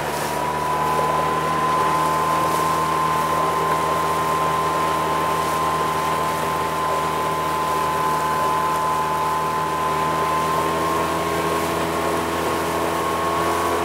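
Tohatsu outboard motor running at raised throttle, driving an inflatable boat along. The revs climb a little in the first two seconds, then hold steady.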